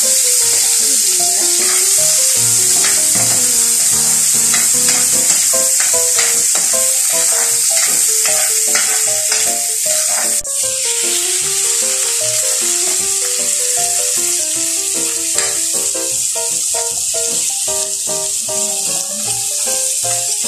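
Chopped onion and garlic sizzling in hot oil in a wok, with a steady hiss and a metal ladle clicking and scraping against the pan as they are stirred.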